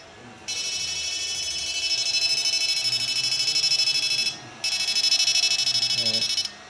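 Electric fish-stunning inverter running on test, giving a loud, steady, high-pitched electronic whine in two stretches that break off briefly about four seconds in and again near the end.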